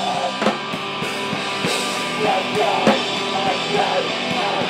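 Rock band music: a drum kit beating steadily under guitar and bass.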